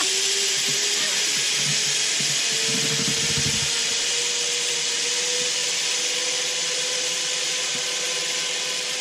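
Zipline trolley pulleys running along the steel cable: a steady hiss with a humming tone that rises slightly over the first couple of seconds and then holds.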